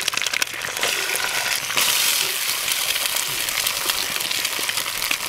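Eggs frying in a deep pool of hot bacon grease in a pan: a steady sizzle with scattered pops and crackles as more eggs are cracked in.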